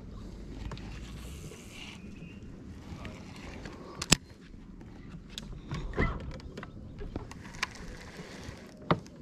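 Baitcasting rod and reel handled aboard a small fishing boat: a few sharp clicks and knocks, the loudest about four seconds in, over a low steady rumble.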